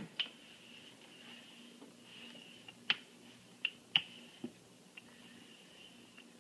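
Rolling pin working dough on a cutting board: faint handling with about five sharp clicks and knocks in the middle seconds, over a faint steady high hum.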